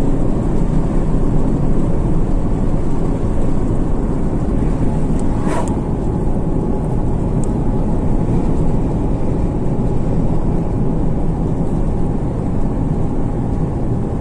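Steady road and engine noise inside a truck cab cruising along a highway, with one brief click about five and a half seconds in.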